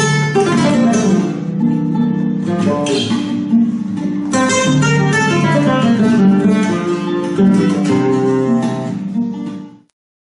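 Flamenco guitar playing: quick runs of plucked notes broken by a few hard strummed chords. It cuts off abruptly near the end.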